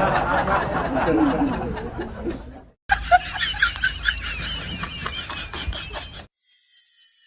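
People laughing, in two stretches broken by a short cut to silence nearly three seconds in; the laughter stops about six seconds in.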